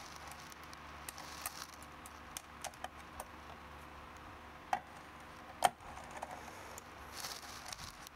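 Small metallic clicks and ticks of a T-handle hex key turning screws into the side of a robot chassis, with two louder knocks about halfway through and a brief scraping rustle near the end.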